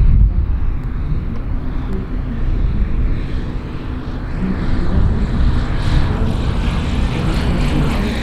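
Blackshape single-engine propeller light aircraft on landing approach, its engine and propeller growing louder and brighter from about three seconds in as it descends past low over the runway threshold.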